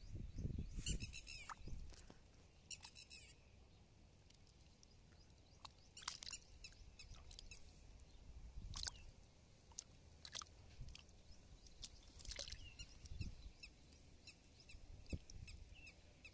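Faint scattered clicks and short high chirps over a quiet outdoor background, with some low rumbling in the first two seconds.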